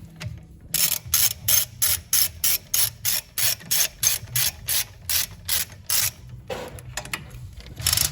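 Ratchet wrench clicking as a nut is run down and tightened, a steady run of about three clicks a second that stops about six seconds in, followed by a couple of single clicks near the end.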